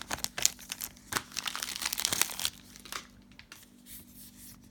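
Plastic wrapper of a Donruss basketball gravity feed card pack crinkling and tearing as it is handled and opened: a quick run of crackles for the first couple of seconds, then only a few faint ticks.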